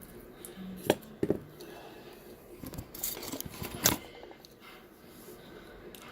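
Small hard parts clicking and clattering as they are handled, with a couple of sharp knocks about a second in and a louder cluster of clicks between three and four seconds in.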